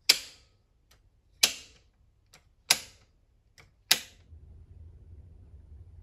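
Household circuit breakers snapped on one after another to load a backup generator: four sharp snaps about 1.3 seconds apart, each with a faint click just before it. After the last snap, a low steady hum comes up.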